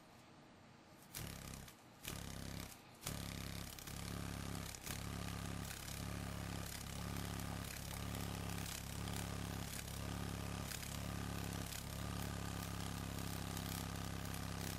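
Rhinoceros beetle's wings buzzing as it flaps in tethered flight, set off by electrical stimulation of both optic lobes. Two short buzzes come about one and two seconds in, then a steady low drone from about three seconds, dipping briefly about once a second.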